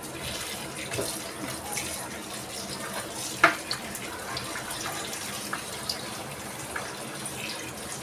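Kitchen tap running into a bowl of shredded lettuce being rinsed in the sink, a steady splashing hiss. A few short knocks of dish or hand against the bowl, the sharpest about three and a half seconds in.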